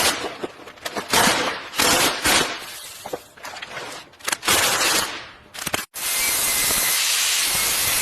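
Spraying hiss in irregular short bursts, then after a sudden cut about six seconds in, a steady, continuous hiss.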